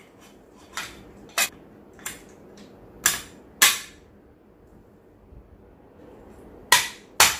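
Sharp metal clicks and clacks as the stamped-steel top cover of a GHK AKMS gas blowback airsoft rifle is fitted back onto the receiver: about seven separate clacks, the loudest a pair near the middle and another pair near the end.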